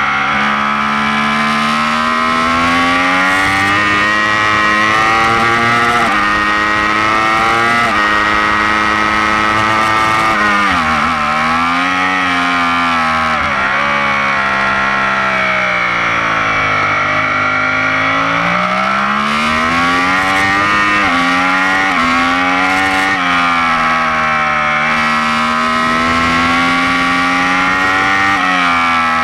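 Yamaha R1 inline-four engine at full racing pace. The pitch climbs hard and drops sharply at each upshift, about every two seconds at first. In the middle it falls away and swoops through downshifts under braking, then climbs through the gears again.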